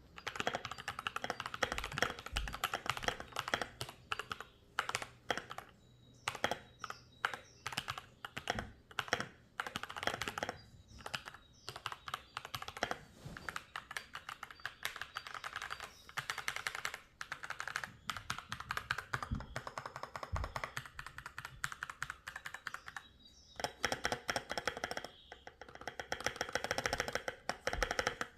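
Akko 3098 mechanical keyboard being typed on: quick runs of clicking keystrokes with short pauses between bursts, and a few deeper thuds among them.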